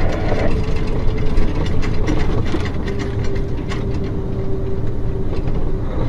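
Steady road and engine drone inside a moving vehicle's cab at highway speed, with scattered light rattles and a faint steady whine through the middle.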